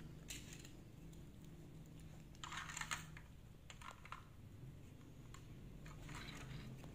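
Faint clicking of plastic Lego bricks as pieces are handled and pulled off a model, in scattered small clicks with a denser cluster partway through.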